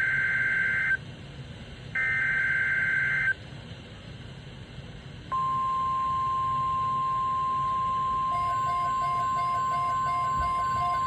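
NOAA Weather Radio SAME alert header: two one-second bursts of two-pitched data tone a second apart, then about five seconds in the steady 1050 Hz warning alarm tone starts. About three seconds later a pulsing alarm beep, about three beeps a second, sounds over it. Together they mark the start of an alert for a severe thunderstorm watch.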